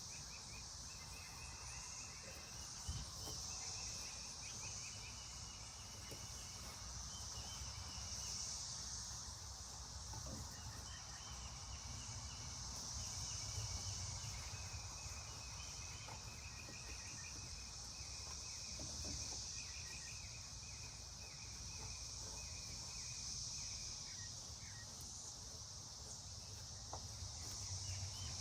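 Insects calling outdoors: a high steady drone that swells and fades every couple of seconds, with shorter trills lower in pitch, over a low background rumble.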